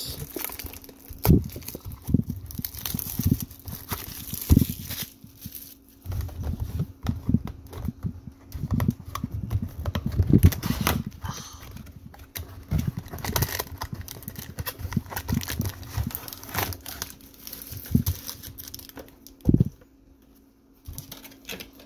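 Hands unwrapping and opening a cardboard trading-card blaster box: plastic wrap crinkling and tearing and the cardboard flap being worked open. Irregular knocks and thumps come as the foil card packs are pulled out and set down on the table.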